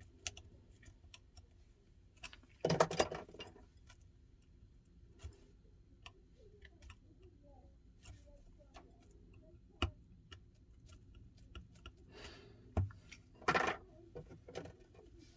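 Small clicks and taps of hand tools and small metal parts handled during a phone repair, with two louder, brief rattles, one about three seconds in and one near the end.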